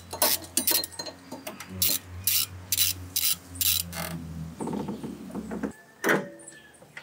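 Ratchet wrench clicking in short runs as it backs out the crankshaft position sensor bolt on a 6G74 V6 engine, then a rubbing rustle and a single knock near the end.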